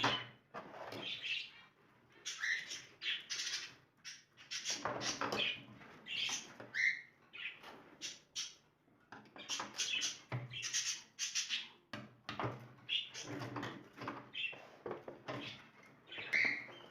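Caged pet birds, the budgerigars and cockatiels kept in the room, chirping and chattering in short repeated calls.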